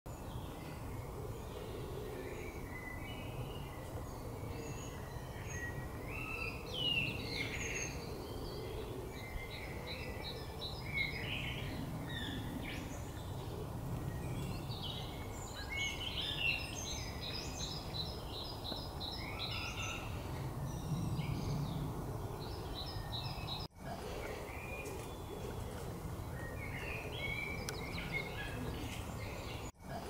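Several songbirds singing and calling, with chirps and quick trilled phrases, over a steady low background rumble. The sound cuts out for an instant twice in the second half.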